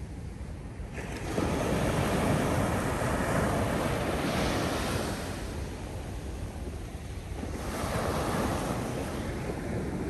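North Sea surf breaking onto a sandy beach: a wave crashes about a second in and washes up, easing off after several seconds, then a second, smaller wave breaks near the end.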